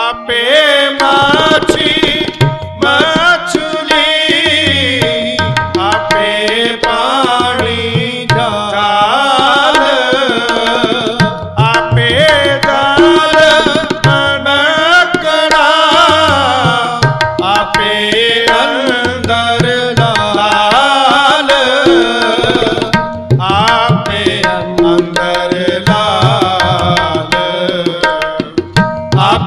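Sikh shabad kirtan: a man singing over harmonium with a tabla keeping a steady rhythm.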